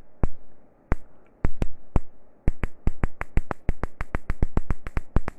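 Ignition sparks snapping, a few single snaps at first, then a fast irregular run of them about two and a half seconds in. The ECU is firing the ignition as the distributor is turned by hand, showing that the harness and ECU trigger the sparks.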